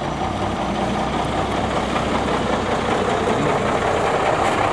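Motor vehicle engines running steadily, growing slightly louder as a three-wheeled motorcycle taxi drives into view near the end.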